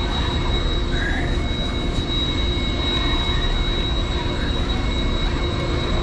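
Boat engines running steadily with a constant hum and low rumble, with a thin high whine held on one pitch throughout.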